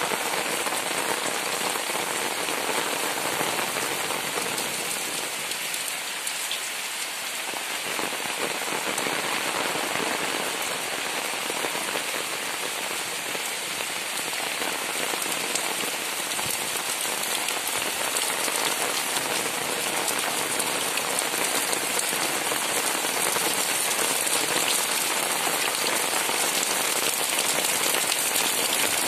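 Heavy tropical rain falling steadily on leaves and wet ground, a dense, even hiss of rain.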